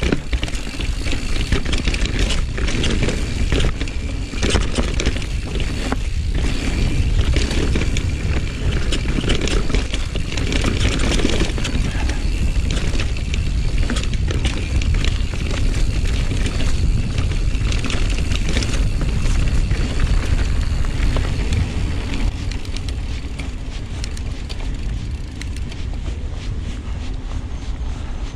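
Rocky Mountain Slayer full-suspension mountain bike descending a dirt singletrack: tyres rolling over dirt, with chain and frame rattling over bumps. Heavy wind rumbles on the camera's microphone.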